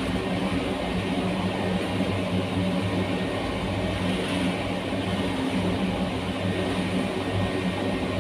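Cremation furnace's fuel burner and blower running with a steady roar and a low, even hum, with the fire burning in the open chamber.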